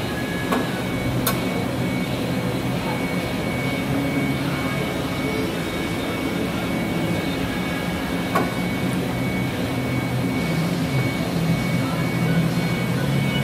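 Sodick AQ35L CNC ram EDM running with a steady mechanical hum and a faint high whine, broken by a few sharp clicks: two in the first second or so and one about eight seconds in.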